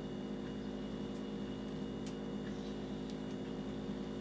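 Steady low hum of room tone, with a few faint light clicks.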